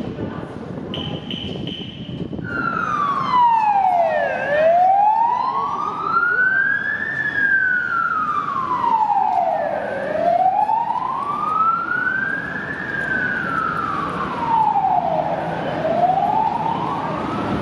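An emergency vehicle siren in a slow wail, its pitch rising and falling about every five and a half seconds, starting about two and a half seconds in. A short high beep sounds about a second in.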